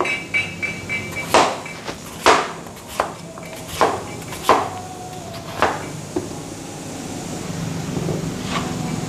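Kitchen knife chopping through peeled potatoes and knocking on a cutting board: about ten uneven chops, stopping about six seconds in.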